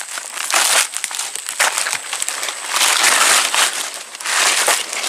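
Dry leaves, twigs and bushes rustling and crackling in several irregular bursts as someone pushes through dense undergrowth.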